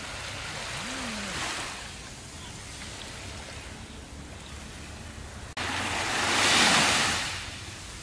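Small waves breaking and washing up on a sandy beach. A gentle surge fades after the first couple of seconds, and a louder one comes in suddenly about five and a half seconds in, then dies away over about two seconds.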